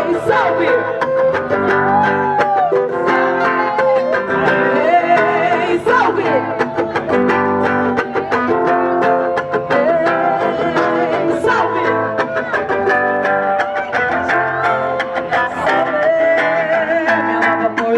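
Music with plucked guitar strings and a wavering melody line above them, with no words.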